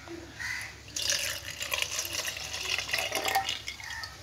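Milk poured from a glass into a plastic blender jar onto chopped dates, splashing steadily for about three seconds from about a second in.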